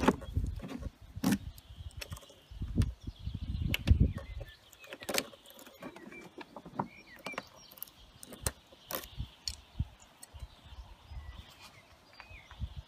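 Keys jingling and clicking as a key on a key fob is worked in the scooter's glove-compartment lock and ignition, with scattered sharp clicks. Low rumbling comes in the first few seconds and eases off after about five seconds.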